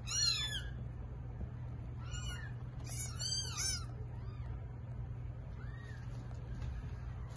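Newborn kittens mewing in short, high-pitched cries. One comes right at the start, a few follow about two seconds in, then a quick run of three or four about three seconds in, and fainter single mews after that. A steady low hum runs underneath.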